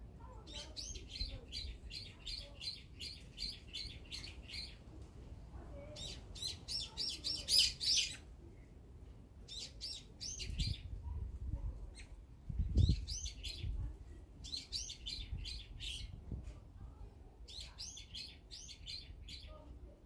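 Eurasian tree sparrows chirping in quick bouts of rapid high chirps, about five a second, several bouts one after another. A couple of low thumps come near the middle.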